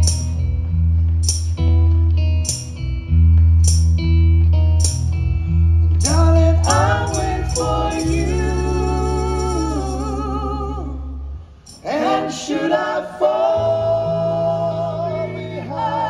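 Live band music: a strummed guitar over bass keeps a slow, steady beat, then about six seconds in several voices start singing together in harmony, holding long notes with vibrato. The singing breaks off for a moment a little past the middle, then the voices come back in with the bass underneath.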